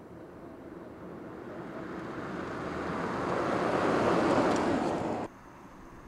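Mercedes-Benz F015 concept car approaching and passing close by, a rushing tyre and wind noise with no engine note that swells to a peak. The sound cuts off suddenly near the end.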